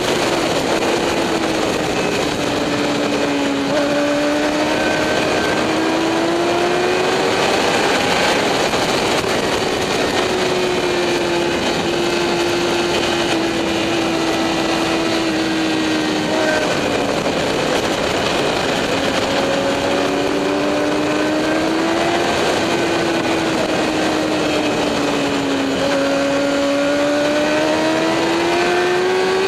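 Motorcycle engine running hard on a race track, its pitch climbing and falling in long sweeps as it accelerates down straights and eases off into corners, over a steady rush of wind noise.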